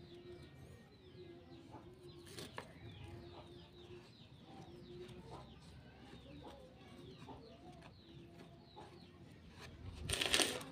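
Birds calling in the background: repeated short, low held notes and many quick high chirps that fall in pitch. There is a brief tap about two and a half seconds in and a louder rustle near the end.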